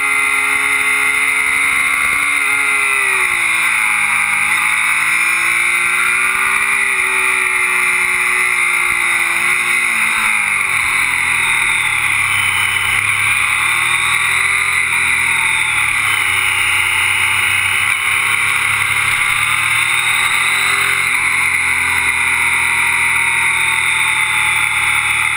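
Motorcycle engine heard onboard while riding through bends, its revs dropping and climbing again several times, under steady wind and road noise.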